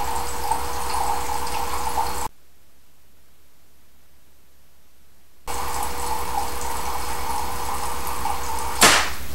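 Water from a home-built Kelvin water dropper running and splashing steadily. It drops to a much quieter stretch for about three seconds in the middle. Shortly before the end comes a single sharp click.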